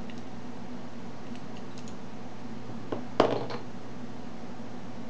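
Light metallic clicks from handling a dimple euro lock cylinder as its core is taken out, with a short clatter of several clicks about three seconds in. A steady low hum runs underneath.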